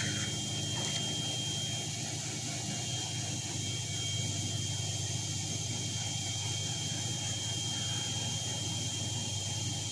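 Laser cutting machine running while it cuts an acrylic sheet: a steady mechanical hum with a thin, constant high whine and hiss over it.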